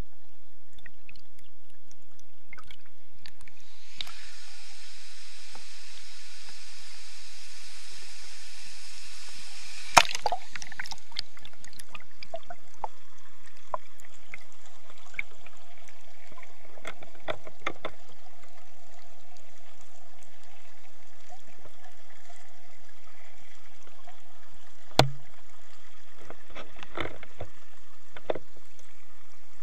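Waterfall water churning into a stream, heard with the microphone underwater: a steady muffled rush, with a few sharp knocks. The loudest knock comes about ten seconds in and another about twenty-five seconds in.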